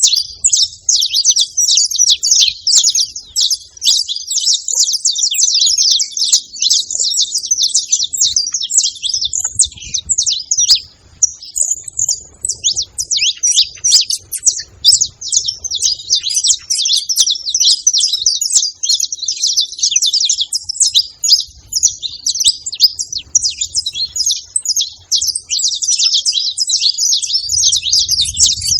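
Several saffron finches chirping and singing all at once, a dense, unbroken mass of high, quick overlapping notes.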